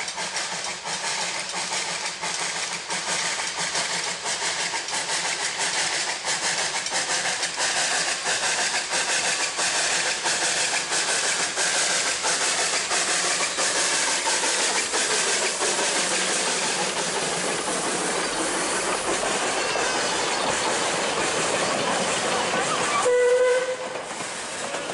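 Victorian Railways NA-class narrow-gauge steam tank locomotive passing close by with its cylinder drain cocks open, giving a steady loud hiss of steam, followed by its carriages rumbling over the rails. A short loud high tone sounds near the end.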